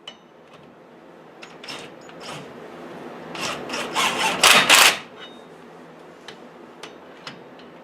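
Impact wrench running the new wheel hub assembly's mounting bolts snug: a few short bursts, then a longer, louder run about three and a half seconds in.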